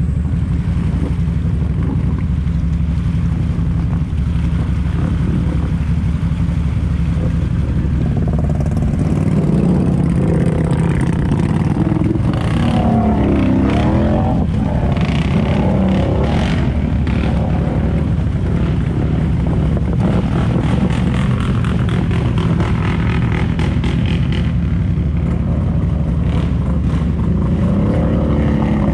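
ATV engine running under heavy load as the quad pushes through seat-deep muddy water, revving harder from about a third of the way in, with a spell of water splashing in the middle.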